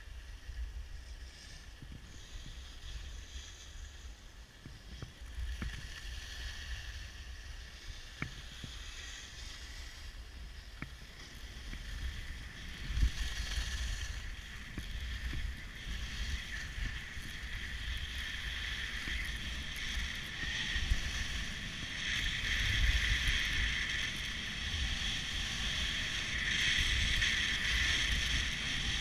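Skis sliding and scraping over packed, groomed snow, with wind rumbling on the microphone. The scraping hiss grows louder from about halfway through as speed builds, with a couple of sharp knocks along the way.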